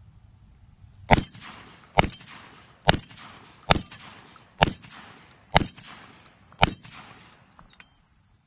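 Seven shots from a Black Aces Tactical SMAX semi-automatic 12-gauge shotgun firing light Federal field-and-target birdshot, about one a second, the action cycling each round without a failure.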